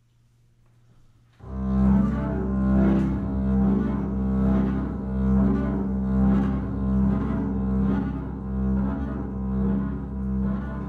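Double bass played with the bow: low sustained notes that start suddenly about a second and a half in and swell and ease in a slow pulse of roughly one stroke a second.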